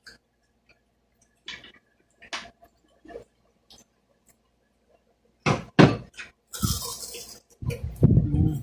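Mealtime eating sounds: a few light clinks of spoon and fork on plates, then, after about five seconds, louder clattering and crunching bites of fried lumpia and cheese sticks.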